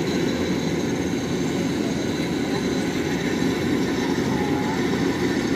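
Kubota DC-93 rice combine harvester running steadily as it cuts standing rice. Its diesel engine and machinery make one constant mechanical drone under load.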